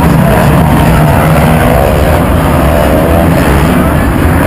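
Motocross bike engines racing around a dirt track, the pitch rising and falling as riders rev and shift, over a steady low rumble.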